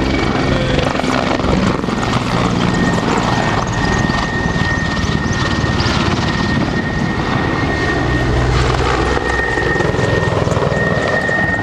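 Mil Mi-24 Hind attack helicopter flying past and banking. Its main rotor chops under a steady high whine from its twin turboshaft engines.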